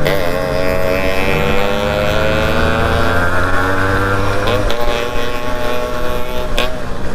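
Yamaha RX two-stroke single-cylinder motorcycle engine running under way, its pitch climbing slowly and then dropping about four and a half seconds in.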